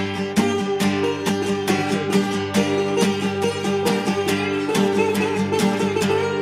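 Background music: a country-style song led by picked acoustic guitar, with a steady beat.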